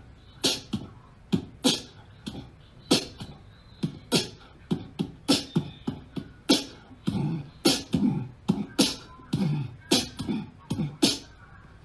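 A beat of sharp, uneven percussive clicks, one or two a second, with low voice-like notes joining between about seven and eleven seconds in.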